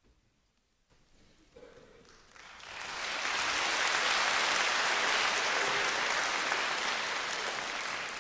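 Audience applauding. The clapping starts about two seconds in, swells quickly and holds steady and loud.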